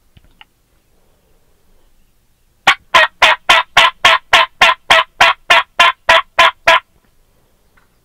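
A long, loud series of about fifteen evenly spaced turkey yelps, roughly four a second, beginning about three seconds in and lasting some four seconds.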